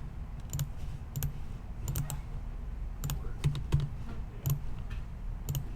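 Irregular clicking on a computer keyboard and mouse, two or three sharp clicks a second.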